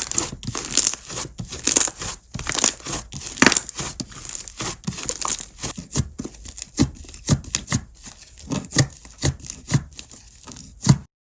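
Slime being squished, stretched and pressed by hand, giving irregular sticky crackles and sharp popping clicks several times a second.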